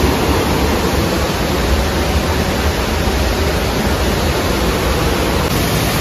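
Steady rush of white water from a rocky river and small waterfall.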